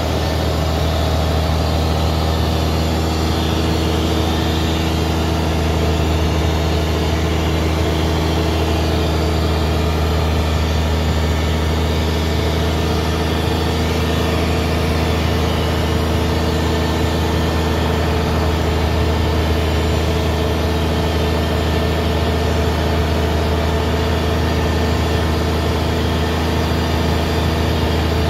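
Fishing boat's engine running steadily, an unchanging low hum with no change in speed.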